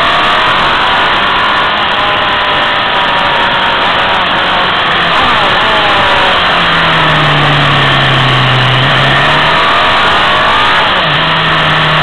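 Motorcycle engine running under way, its pitch rising and falling repeatedly as the throttle is opened and closed, over a steady rush of wind noise on the microphone.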